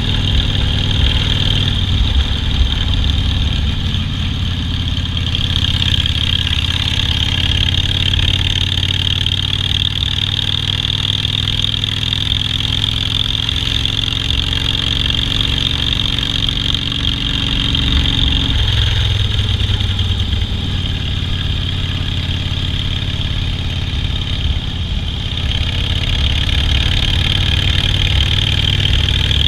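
Harley-Davidson Softail Standard's V-twin engine running steadily, its pitch climbing slowly and then dropping sharply about two-thirds of the way through.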